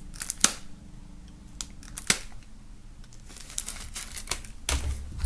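A knife tip slitting the plastic film on a CD jewel case: sharp clicks and scratches of the blade against the hard plastic case, with some crinkling of the film. There is a dull bump near the end.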